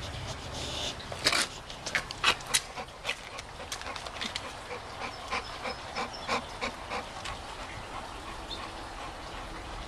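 A French Mastiff (Dogue de Bordeaux) sniffing right at the microphone in short, quick snuffles. They come irregularly at first, then settle into about three a second before fading out near the end.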